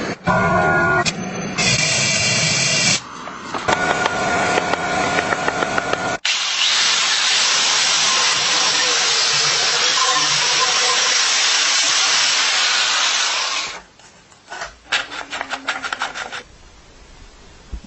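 Workshop power tools at work on a bicycle restoration. In the first six seconds there are short whining tool passes. These give way to about seven seconds of steady loud hiss that cuts off sharply, and then a run of quick clicks.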